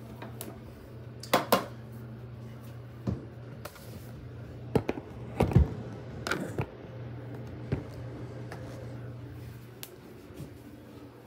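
Scattered knocks and clicks of objects being handled in a small bathroom, a double click about a second and a half in and the loudest a dull thump about five and a half seconds in, over a steady low hum.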